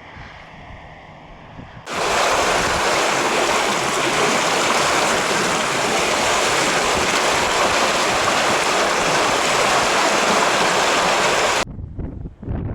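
Floodwater rushing, a loud steady roar that starts suddenly about two seconds in and cuts off suddenly near the end, with a faint wind rumble before it.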